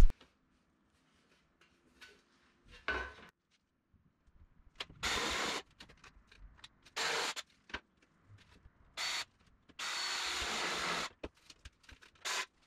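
Cordless drill running in four short bursts, the longest about a second, drilling holes through a thin aluminium bulkhead flange, with small handling clicks between the bursts.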